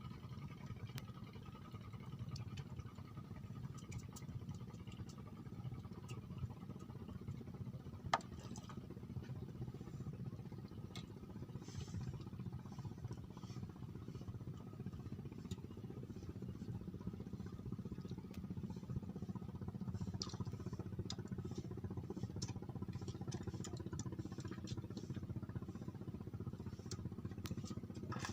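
A small engine running steadily in the background, with scattered faint clicks and knocks and one sharp click about eight seconds in.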